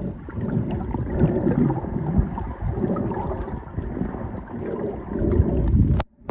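Muffled water movement and gurgling picked up by a camera held underwater, a low, irregular rumbling wash. It cuts off abruptly with a sharp click about six seconds in.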